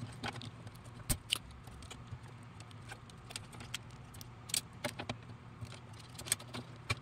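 Light scattered clicks and taps of a small circuit board, its wires and a soldering iron being handled during desoldering, a few sharper clicks among them, over a faint steady low hum.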